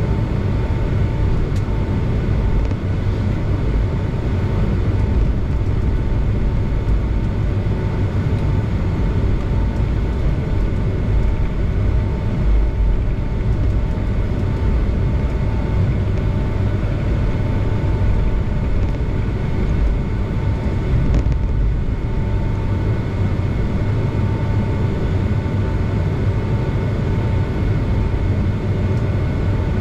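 Boeing 757 cabin noise while taxiing: a steady low rumble from the engines at low power and the airframe rolling over the taxiway, with a thin steady whine above it.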